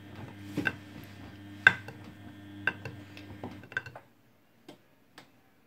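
Front-loading washing machine tumbling a load of jackets: a steady motor hum with sharp clicks and knocks from the tumbling load about once a second. The hum and the tumbling stop about four seconds in, as the drum pauses in the wash cycle, leaving only a couple of faint clicks.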